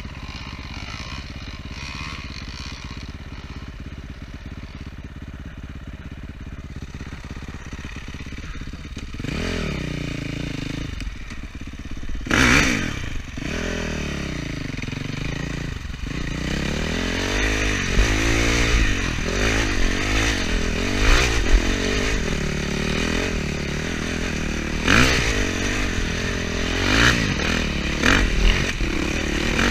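KTM enduro dirt bike engine, running steadily at low revs for the first several seconds, then revving up and down repeatedly, with clatter and scraping from riding over rough ground and several sharp knocks, the loudest about twelve seconds in.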